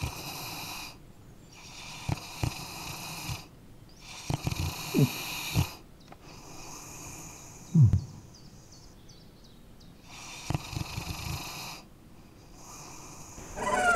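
A sleeping dog snoring: slow, hissing breaths in and out every couple of seconds, with two short low sounds that fall in pitch about five and eight seconds in.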